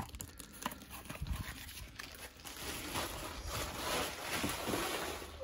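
Light, scattered knocks and clicks of a plastic toy vehicle being handled and set down on a tabletop.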